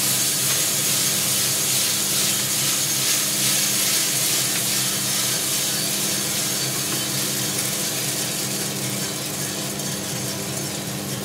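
Freshly roasted coffee beans pouring out of a drum roaster's discharge door into its cooling tray: a dense rattling hiss over the steady hum of the roaster's fans and motors. It eases off toward the end as the stream of beans thins out.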